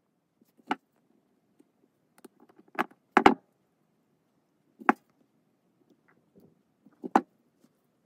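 Small metal keychain parts clicking and clinking as they are fitted together by hand. About five sharp separate clicks, the loudest a quick double click a little past three seconds in.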